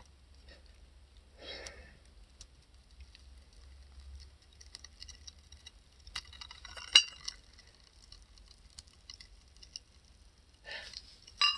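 Quiet, scattered faint ticks and small knocks as a paper sigil burns in a ceramic pot that is being held and handled, with a sharper cluster of clicks about seven seconds in and a short ceramic clink near the end.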